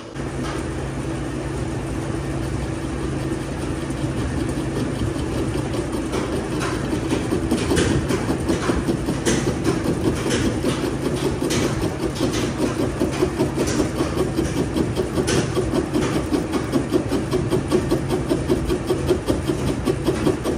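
A machine's motor or engine running steadily with a low hum. Its level begins pulsing rapidly about eight seconds in, and there are scattered sharp clicks through the middle.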